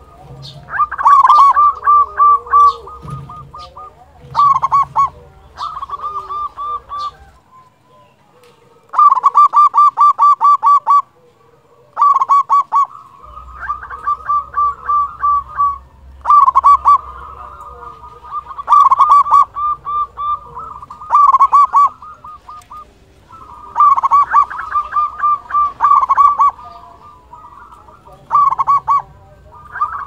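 Local zebra dove (perkutut) singing: about a dozen loud bouts of rapid staccato cooing notes, roughly five a second, each bout lasting one to two seconds with short pauses between.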